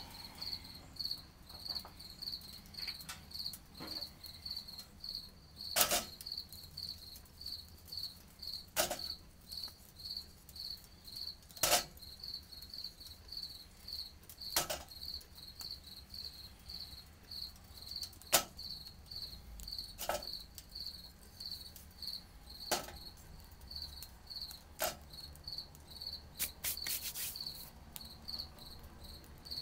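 A cricket chirping steadily, a little under two chirps a second. Over it come sharp clacks every two to three seconds, with a quick cluster near the end: charcoal briquettes set one at a time into a tin-can wood stove.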